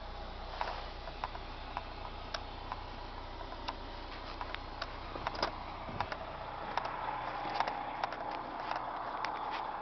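Footsteps and camera handling: scattered clicks and taps while walking down the coach's entry steps onto the pavement. A low steady hum underneath drops away about six seconds in, after which a brighter outdoor hiss is louder.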